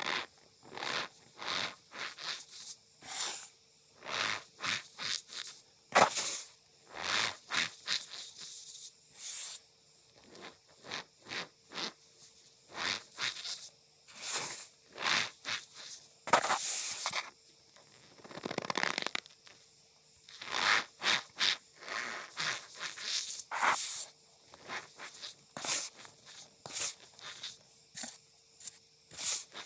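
Cornstarch powder squeezed and pressed by hand, giving many short squeaky crunches at an uneven pace, with a faint steady hum underneath.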